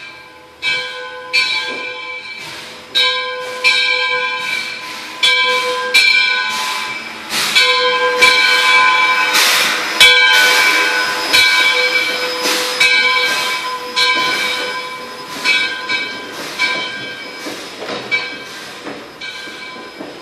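Bell of 2-8-0 steam locomotive No. 18 ringing steadily, about one strike every three quarters of a second, as the locomotive pulls into the station. Midway a loud hiss of steam rises over the bell as the engine passes close by, the loudest part.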